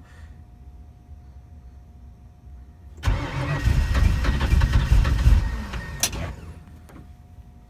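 Ford 351 Windsor V8 in a 1964 Mercury with Holley Sniper EFI, cold-started at −20 °C without being plugged in: about three seconds in it fires and runs for about three seconds, then, after a sharp click, dies away again.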